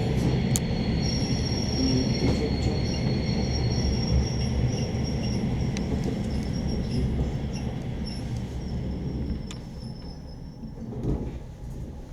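Suburban train running with a dense low rumble and thin, high-pitched squeals over it. The sound fades and dies away over the last few seconds as the train slows or moves off.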